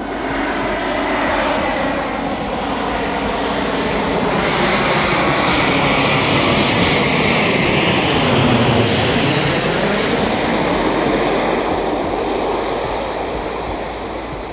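Twin-engine jet airliner on final approach with landing gear down, passing low overhead. The jet engine roar builds to its loudest about eight or nine seconds in, then fades, while an engine whine falls in pitch as the aircraft goes by.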